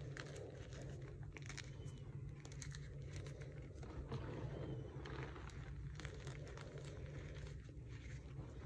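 Hands squeezing and crumbling handfuls of soft dyed gym chalk into a heap of chalk powder: a soft, continuous crunching with many small crackles, over a steady low hum.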